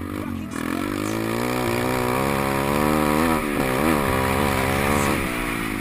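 A 150 cc pit bike engine revving as it rides. The engine note climbs about half a second in, then rises and falls with the throttle around three to four seconds in.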